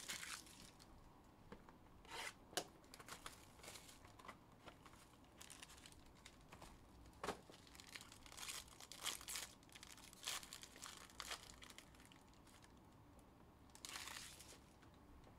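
Faint tearing and crinkling of a foil trading-card pack wrapper as it is ripped open by hand: irregular short rips and rustles, with a longer crinkle near the end.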